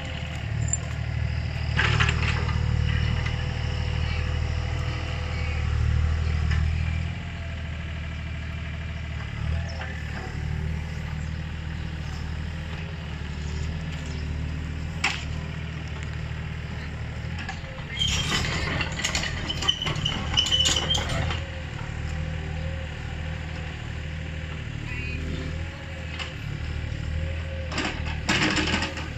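Yanmar ViO35 mini excavator's diesel engine running steadily as the machine works, with metallic clanks and a burst of clattering from the tracks and bucket about 18 to 21 seconds in.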